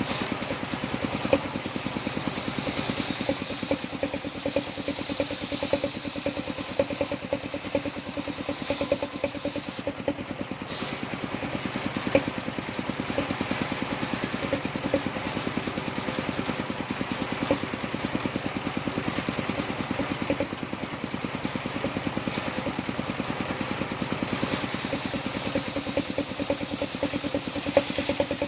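Engine driving a wood-sawing machine, running steadily with a fast, even firing rhythm and a few louder knocks.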